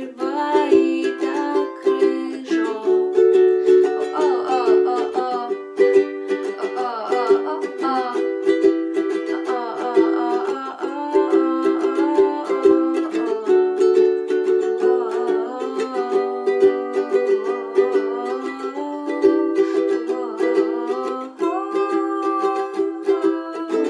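Ukulele strummed in an even rhythm of chords, with a woman singing a melody over it.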